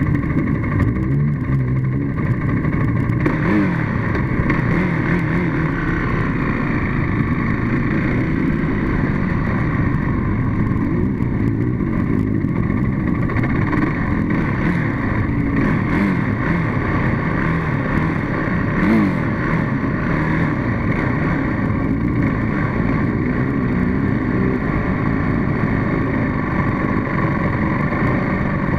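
Motor vehicle engine running steadily, its pitch wavering up and down a little now and then.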